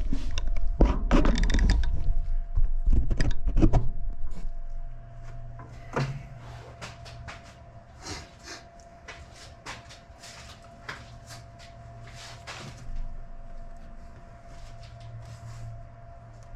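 Hand work on a car engine: a loud rumbling and knocking of parts being moved for the first few seconds, then scattered metal clicks and taps of tools and parts, over a steady low hum.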